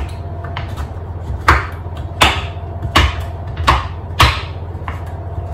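Large kitchen knife chopping a bar of dark chocolate on a wooden cutting board: a series of sharp knocks as the blade hits the board, with about five loud strokes less than a second apart from about a second and a half in and fainter cuts between. A steady low hum runs underneath.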